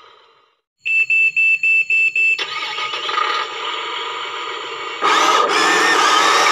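A run of six short electronic beeps at one steady pitch, followed by a steady rushing noise. About five seconds in, a louder, fuller din begins.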